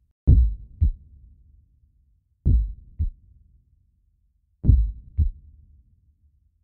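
Heartbeat sound effect: three slow double beats (lub-dub), each a pair of deep thumps about half a second apart, repeating about every two seconds.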